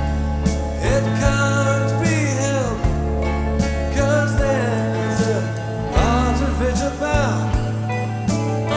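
Live rock band playing a slow song: held bass notes that change every second or so under a lead melody that bends up and down in pitch.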